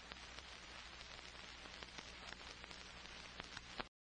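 Faint steady hiss with a low hum and scattered small crackles, cutting off to total silence just before the end.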